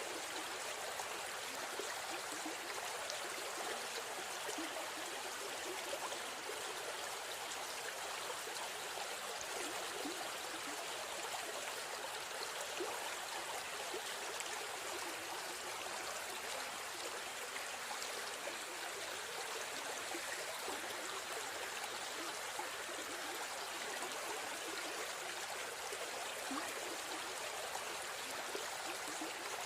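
Steady river stream sound: continuous flowing, babbling water with no breaks or changes.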